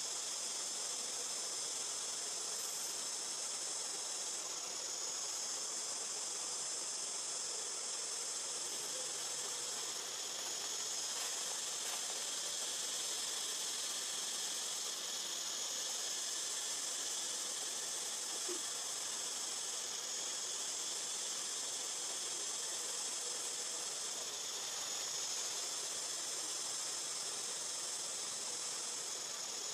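Forest insect chorus: a high, steady buzzing drone that shifts slightly about every five seconds.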